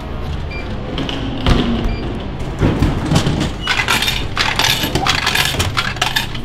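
Drink vending machine in use: coins clinking, a couple of faint short beeps, then a plastic bottle clunking down into the dispensing tray and clattering as it is pulled out.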